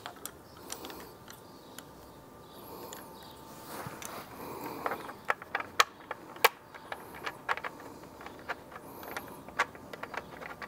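Small scattered metallic clicks and taps of a hex bolt and washer being fitted and hand-threaded through a bracket into a headlight housing; the clicks come more often from about halfway through.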